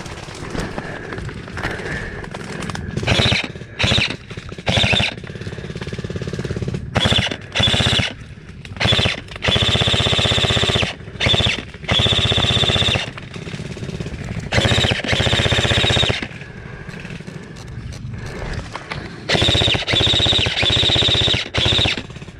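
Airsoft electric guns firing on full auto in repeated bursts, each a fast, even rattle. There are more than a dozen bursts, from a fraction of a second up to about two seconds long, the longest ones around ten seconds and twenty seconds in.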